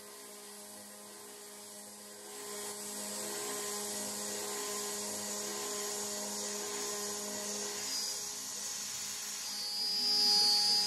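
CNC router spindle whining steadily as a quarter-inch end mill spirals down into a cast aluminum plate, cutting a counterbore. The cutting noise and hiss swell about two seconds in, and a louder, higher whine comes in near the end.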